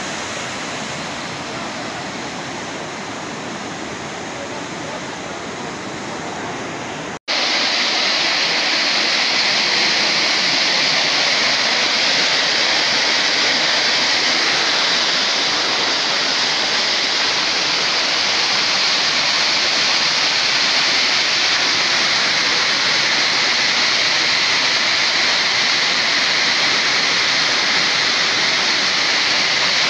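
Floodwater rushing through a channel and streets, a steady loud noise of fast-flowing water. About seven seconds in it cuts out for an instant and comes back louder and hissier.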